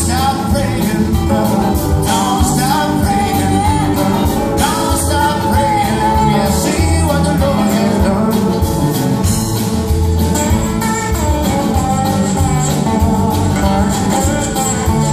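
Live bluesy roots-rock band playing, with a sung vocal line over strummed acoustic guitars, mandolin and electric bass.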